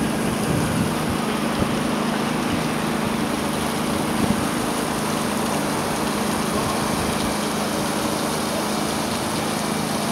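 Steady outdoor city-centre background noise: an even rushing hiss with a low, constant hum underneath.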